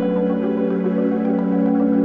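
Background music: a calm ambient, new-age piece with held synthesizer tones and light melodic notes above them.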